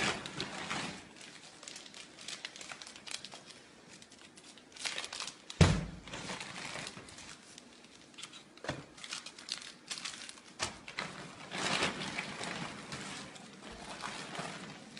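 Plastic bags crinkling and rustling as they are handled, with a few sharp knocks, the loudest about five and a half seconds in.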